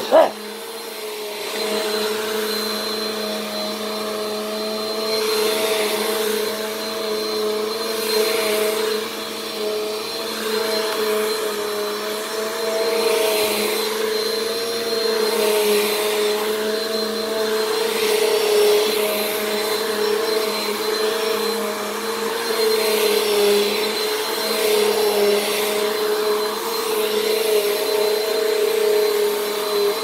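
Bissell PowerForce Compact (model 1520) bagless vacuum cleaner running on carpet: a steady motor hum with a thin high whine, and a rushing of air that swells and fades with each push and pull, about every second and a half. The owner calls its motor not the healthiest. A short loud bump comes right at the start.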